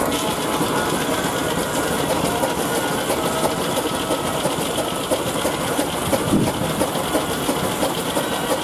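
Steam traction engine on belt work, driving a circular saw bench through a long flat belt, with the saw turning freely between cuts. A steady, rapid mechanical clatter.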